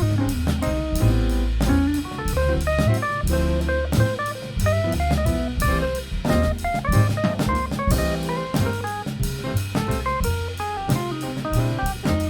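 Small jazz combo playing an instrumental passage: a quick line of single notes over a moving bass line and drum kit with steady cymbals.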